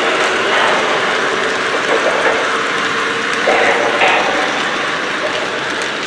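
O-scale Lionel model freight cars rolling past on three-rail track: a steady, loud rolling noise of wheels on the rails, with a few short louder sounds mixed in.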